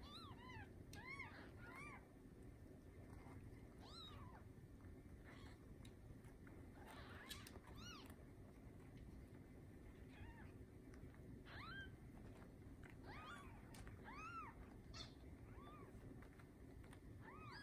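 Newborn Bengal kittens mewing faintly: short, high squeaks that rise and fall in pitch, coming singly and in little clusters every second or two.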